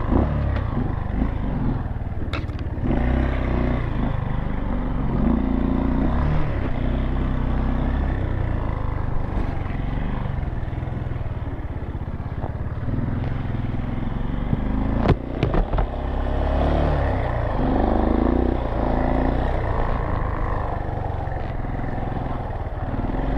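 Dirt bike engine running, its revs rising and falling again and again as it is ridden through mud. A sharp knock comes about two and a half seconds in, and another about fifteen seconds in.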